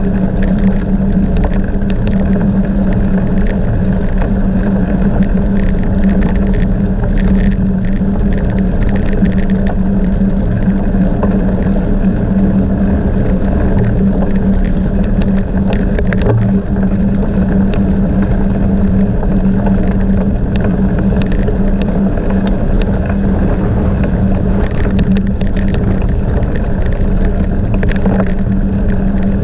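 Bicycle riding noise: a steady rumble of tyres rolling on the road with wind on the microphone, and scattered clicks and rattles.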